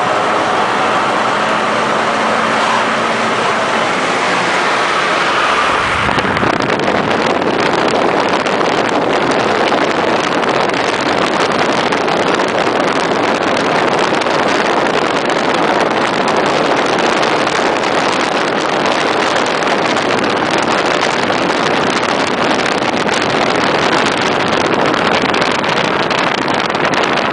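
Inside a car accelerating hard: the engine is heard under load for the first few seconds. From about six seconds in, a loud, steady rush of wind and road noise at speed covers it.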